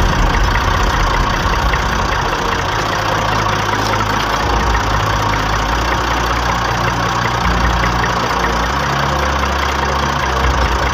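A tractor engine runs steadily as the tractor drives along, with a strong low drone whose pitch and level shift every second or two.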